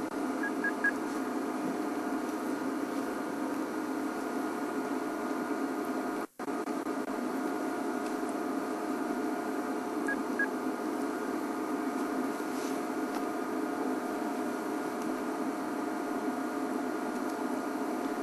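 A steady droning hum with several constant pitches over a hiss. A few faint short beeps come at the start and again about ten seconds in. The sound drops out completely for a moment about six seconds in.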